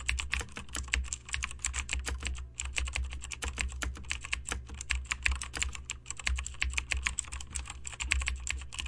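Computer keyboard typing: a rapid, steady stream of key clicks over a low hum.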